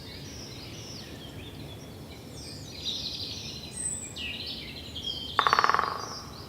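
Forest ambience of several songbirds chirping and whistling over a steady background hush, with a louder, fast rattling call for about a second near the end.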